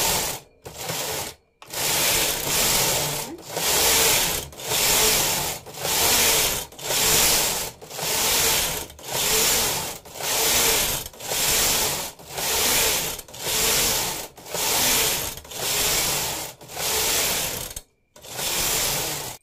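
Domestic flatbed knitting machine: the carriage is swept back and forth across the needle bed, knitting two-colour punch-card pattern rows. Each pass is a loud mechanical rush of about a second, with short pauses between, roughly one pass a second.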